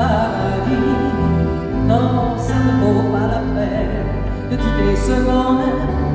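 Live band music with a woman singing a slow song in phrases over held chords and bass guitar.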